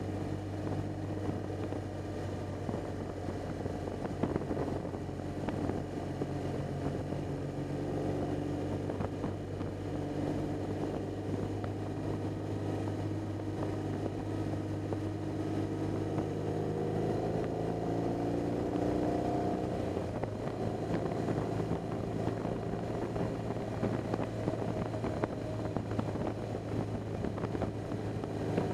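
BMW R 1200 GS boxer-twin engine running on the move, heard from a bike-mounted camera, with some wind noise. The engine note holds steady, then climbs about two-thirds of the way through and drops back, as the bike accelerates and shifts.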